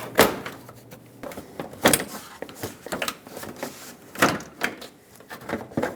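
Plastic engine-bay cover over the radiator support being lifted off and handled: a series of sharp plastic knocks and clicks, the strongest about every two seconds, with lighter rattles between.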